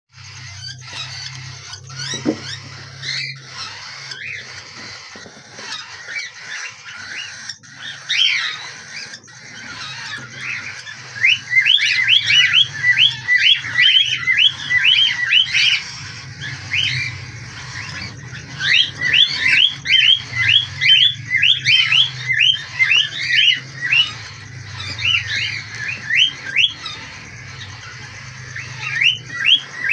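Lovebirds giving fast runs of short, shrill squawking chirps, four to five a second, the begging calls of birds being hand-fed. The calls come in bursts, loudest from about a third of the way in and again past the middle.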